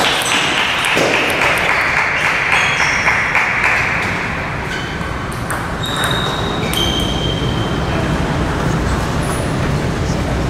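Table tennis balls clicking sharply and irregularly off paddles and the table in play, over steady hall noise, with a few short high squeaks.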